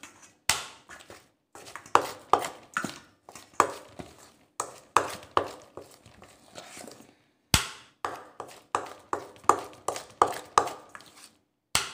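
A spoon scraping and clinking against a stainless steel bowl while stirring a thick spice paste, in irregular strokes about two or three a second, with one sharper knock about halfway through.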